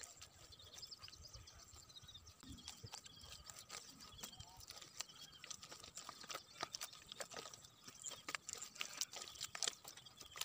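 Bare hands scooping and squelching through thick wet mud, giving irregular wet slaps and clicks.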